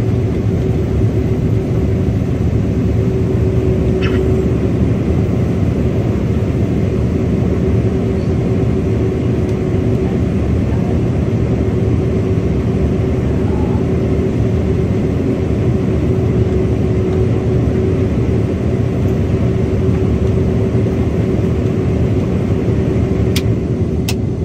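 Combine harvester running steadily while harvesting corn, heard inside the cab: a low, even drone with a steady whine above it.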